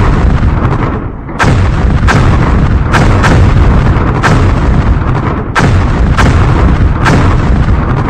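A rapid series of heavy explosive booms, about one a second, with a deep rumble carrying on between them.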